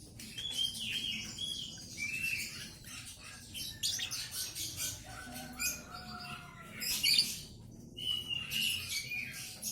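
Lovebird chirping in many short, high calls, in clusters with brief pauses.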